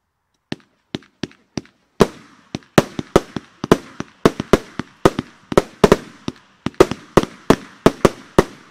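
Blackboxx Fireworks 'Miese Liese' 1.4G fan cake firing. Four lighter shots come about half a second in, then a rapid run of sharp reports follows, about three a second, with a hiss between them.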